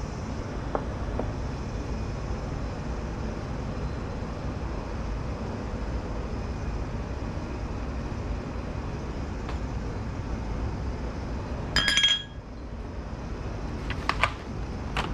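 Kitchenware clinking: one sharp, ringing clink of metal or glass about two-thirds of the way through, then a few lighter clicks near the end, over a steady low background rumble.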